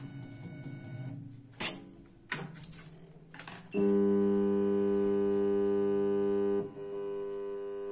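Sharp clacks from a flash butt welding machine's clamps and lever. About four seconds in, a loud steady electrical buzz starts as current is switched through the fresh weld of a band saw blade to heat-treat it. The buzz drops in level shortly before the end and carries on more quietly.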